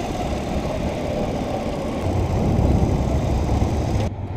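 1974 Honda PC50 moped's small 49cc engine running at low speed as the bike rolls slowly across a car park, with a steady low rumble.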